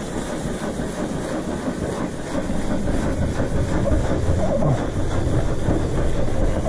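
Hand scrubbing with a sponge pad on the ribbed underside of a deck, working foamed degreaser off the grime: a steady, rough rubbing made of many quick strokes close to the microphone.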